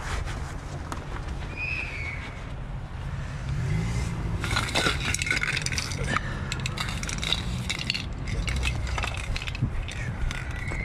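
A run of clinks and knocks, like objects being handled, starting about four seconds in, over a steady low rumble of background noise.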